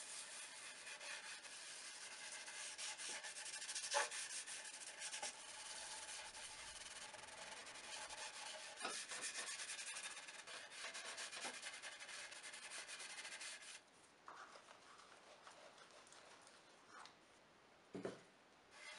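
Faint, steady rubbing by hand over the wooden surface of an end grain cutting board, with a few light clicks, stopping about two-thirds of the way through. A short light knock comes near the end.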